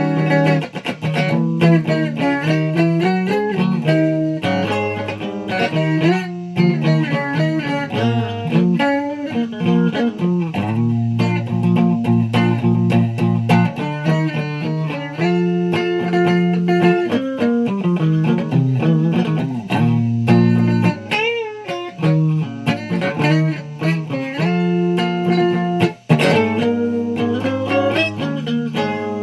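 Guitar being played: a stream of plucked notes and chords over held low notes, with a short pause about three-quarters of the way through.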